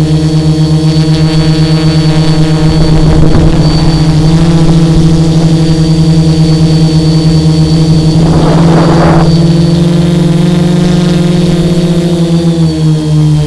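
Three Emax XA2212 980 kV brushless motors and propellers of a home-built tricopter running steadily at climb-out throttle, a loud steady hum heard close-up through the camera mounted on the frame. A short rush of noise comes about eight seconds in, and the pitch dips slightly near the end.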